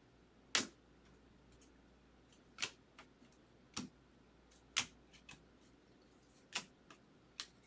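Baseball trading cards being handled and flipped through: a string of about six sharp, short clicks and snaps at uneven intervals, with a few fainter ticks between them.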